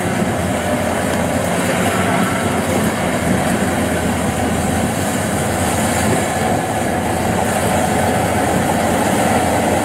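Kubota DC-93 rice combine harvester running steadily as it cuts rice and tracks through soft, sticky paddy mud: the diesel engine and threshing machinery working under load.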